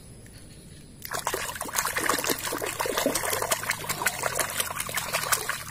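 Water trickling and splashing as a muddy toy animal figure is washed clean, starting about a second in.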